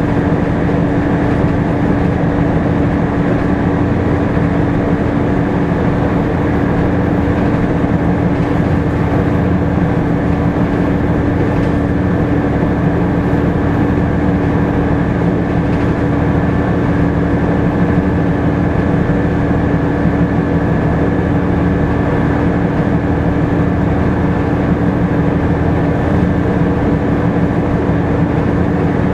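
Volvo B7TL double-decker bus heard from inside the lower deck while under way: a steady drone of its seven-litre six-cylinder diesel and loud cooling fan, with a strong constant hum over the noise of the running gear.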